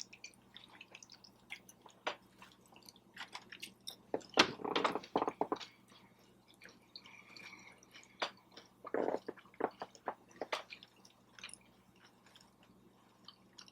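Close-miked chewing and mouth sounds of someone eating, with many short wet clicks and louder bouts of chewing about four seconds in and again around nine to ten seconds.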